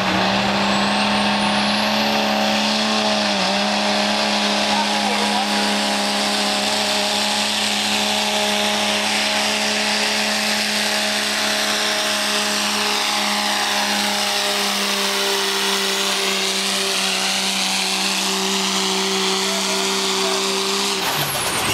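1995 Dodge's 12-valve Cummins inline-six turbodiesel held at high revs under full load while pulling a weight sled, giving a loud, steady drone. The pitch climbs slightly at the start, holds for about twenty seconds, then drops away near the end.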